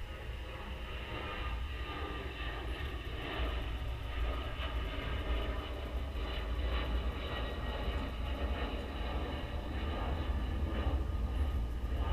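Twin Ford 351 V8 engines of a 1977 Safari 28 flybridge boat running at low harbour speed, a steady low rumble that grows slightly louder as the boat comes closer.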